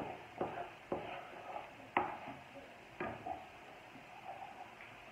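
Wooden spatula stirring cream sauce in a frying pan. It knocks sharply against the pan about five times in the first three seconds, then turns to softer scraping.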